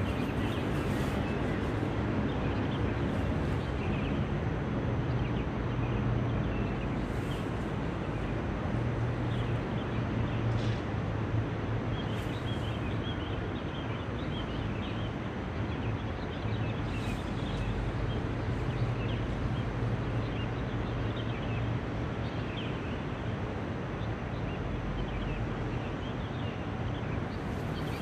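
Steady city traffic hum, with faint bird chirps scattered through it.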